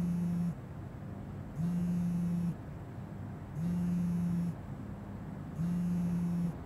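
Smartphone on a bed mattress vibrating with an incoming call: four low buzzes, each about a second long, spaced about two seconds apart. The call goes unanswered.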